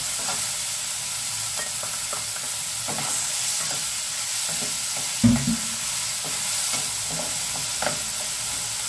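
Minced beef, diced potato and carrot sizzling in a wok while a wooden spatula stirs them, with light knocks of the spatula against the pan and one louder knock about five seconds in.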